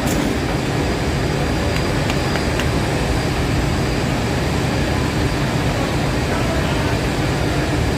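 A machine running steadily, with a constant low noise and a faint high steady whine.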